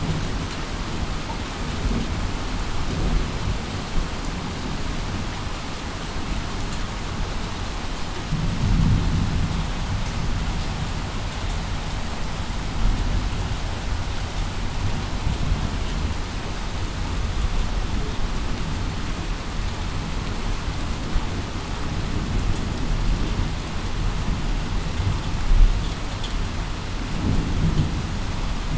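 Heavy rain falling steadily on a wet parking lot, with low rumbles swelling and fading, strongest about eight to ten seconds in and again near the end.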